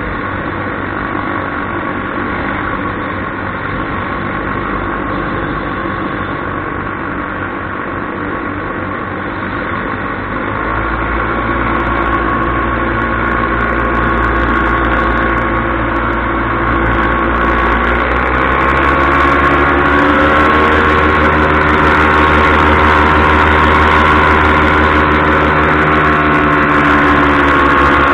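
Paramotor engine and propeller running in flight. It gets louder about a third of the way in, and past the middle the pitch climbs and holds higher as the throttle is opened.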